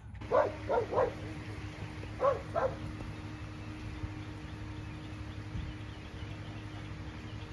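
A dog barking: three quick barks, then two more a little over a second later, over a steady low hum.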